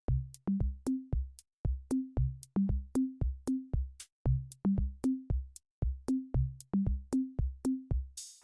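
Background electronic music: a drum-machine beat with kick drum, bass notes and ticking hi-hats in a steady rhythm.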